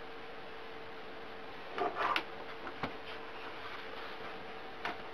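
A few soft clicks and knocks as a tablet is handled and turned on a desk: a short cluster about two seconds in, then single clicks near three seconds and near the end, over a steady faint hum.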